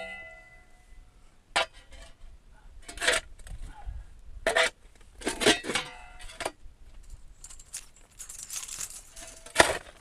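Irregular metal clanks and clinks, several with a brief ringing tone, as steel pieces are knocked and handled.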